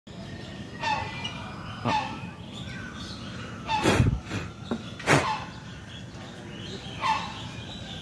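A large bird giving about five short, loud calls, one every second or two.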